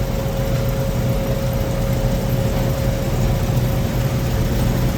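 Gleaner L2 combine running idled up with its threshing cylinder turning. A steady low engine hum with a thin, steady whine over it.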